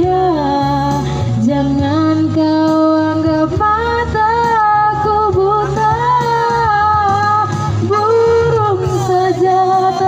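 A woman singing a slow melody into a handheld microphone, holding long notes, over steady backing music.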